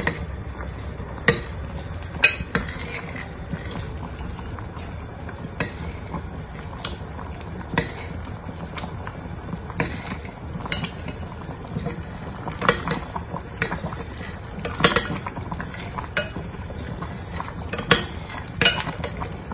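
A metal spoon stirring thick chocolate rice porridge in a glass cooking pot, clinking sharply against the glass at irregular moments, about once a second.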